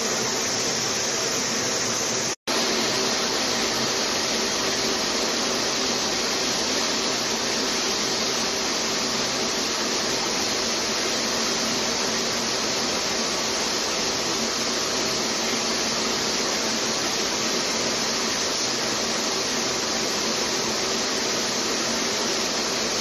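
Clothing-waste recycling line of rag-opening machines running: a steady, loud rushing noise with a faint low hum underneath. The sound cuts out for an instant about two and a half seconds in.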